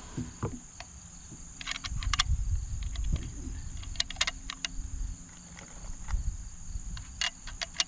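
Swedish M96 Mauser being loaded by hand: short metallic clicks come in three small clusters as cartridges are pushed into the magazine. A steady high insect drone runs underneath.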